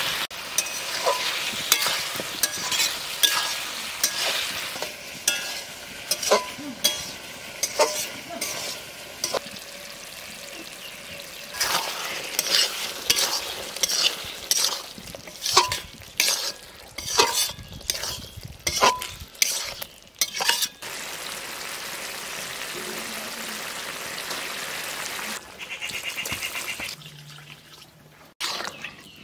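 Ridge gourd pieces frying in a metal kadai with a steady sizzle, while a spatula stirs them, scraping and knocking sharply against the pan many times. The knocking stops about two-thirds of the way in, leaving the sizzle on its own.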